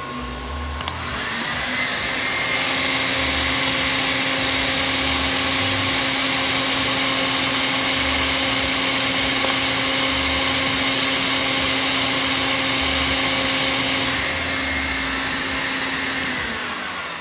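Electric blower driving air through a home-built venturi air amplifier, turned up to high on a speed controller: its motor whine rises as it spins up about a second in, then runs steadily with loud rushing air, and winds down near the end.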